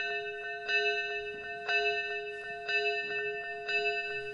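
Chapel bell tolling, struck about once a second, each stroke ringing on into the next.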